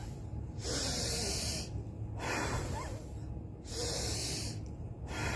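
A woman blowing out hard through her mouth at a tissue held in front of her face as a breathing exercise: four forceful breaths out, each about a second long, with short pauses between them.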